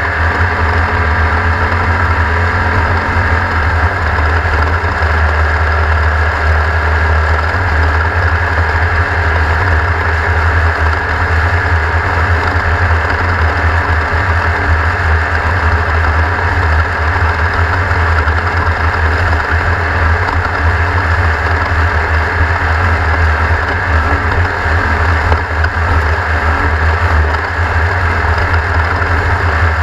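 Race car engine running at a steady, unchanging speed, a constant low hum with no shifts or revving.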